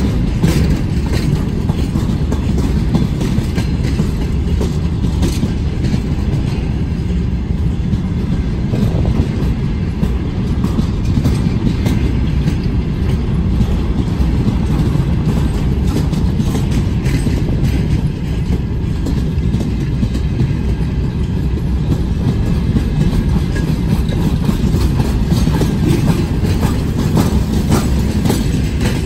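Freight train wagons rolling past close by: a steady, loud low rumble with scattered clicks from the wheels over the rails.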